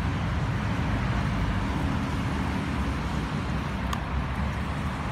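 Steady low rumbling background noise, with a faint click about four seconds in.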